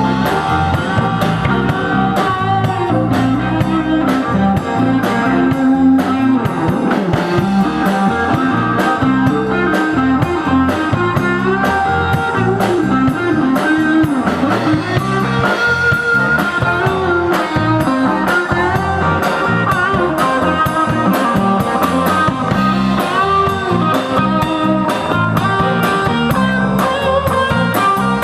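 Live rock band playing an instrumental, blues-style electric guitar lead over bass and drum kit.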